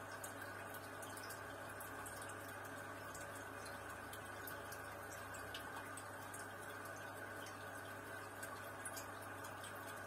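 Aquarium air-driven sponge filters bubbling: a steady soft wash of bubbling water with many small scattered pops at the surface, over a steady low hum from the pump.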